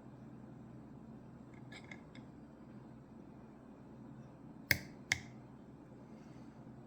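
Lock picking tools working the pins of a Ruko 600 pin-tumbler lock with barrel drivers: a few faint metallic clicks, then two sharp clicks in quick succession a little past halfway.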